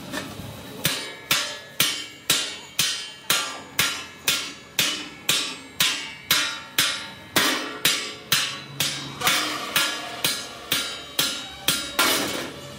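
Hammer striking metal in a steady run of blows, about two a second, during accident-damage repair on a truck; the blows begin about a second in and stop near the end.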